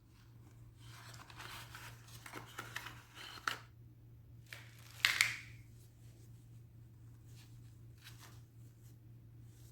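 Irregular rustling and crinkling handling sounds in short bursts, the loudest about five seconds in, over a steady low hum.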